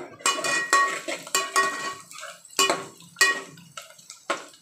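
Stainless steel pots and a lid knocking and clinking together as they are handled, about nine sharp metallic strikes that each ring briefly.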